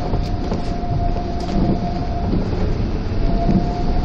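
Running noise heard inside a Shonan Monorail car, a rubber-tyred suspended monorail, under way: a steady rumble with a thin steady whine that drops out for under a second in the middle.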